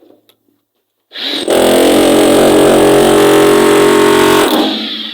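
Jackhammer running in one burst: it starts suddenly about a second in, runs steadily and loud for about three and a half seconds, then dies away near the end.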